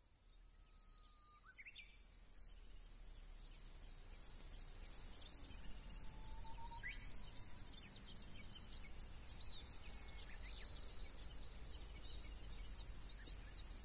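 Steady high-pitched insect chorus that swells up over the first few seconds, with a few brief bird chirps scattered through it.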